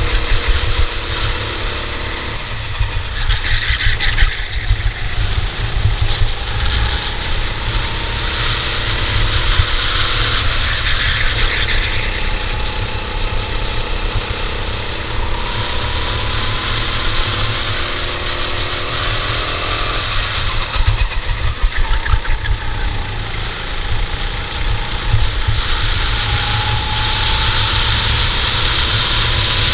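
Racing go-kart engine running hard, its pitch climbing slowly several times and dropping back as the kart goes through acceleration and braking, over a constant heavy low rumble.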